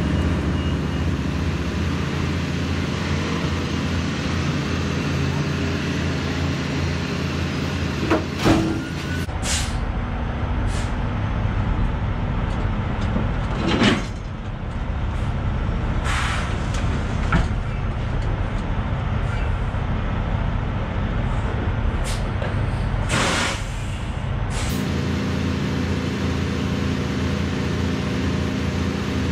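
Semi truck's diesel engine running steadily while the trailer is rocked back and forth to slide its tandem axles. Several short hisses of air-brake release cut in along the way, and the engine note changes near the end.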